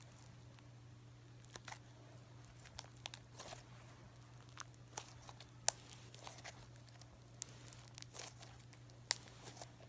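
Fluffy shaving-foam slime being stretched and kneaded by hand, giving faint, irregular sticky pops and crackles, a dozen or so scattered through, with a steady low hum underneath.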